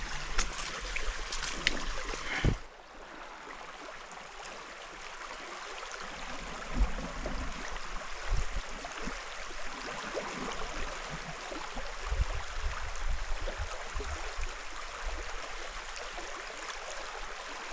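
Shallow river running steadily, an even rush of water. For the first two and a half seconds louder rustling and sharp knocks sit over it, then they stop suddenly, leaving the water with a few soft low thumps.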